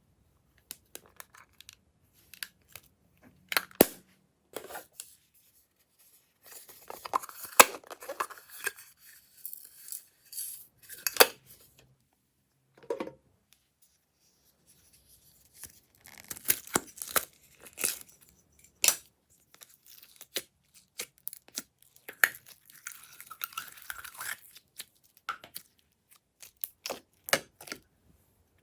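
Hands squishing and stretching glossy slime: sticky clicks, pops and crackles in two longer spells with a short pause between.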